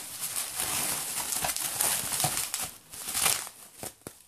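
Plastic bubble wrap crinkling and rustling as a boxed CD album is pulled out of it, with a louder rustle about three seconds in before it dies down.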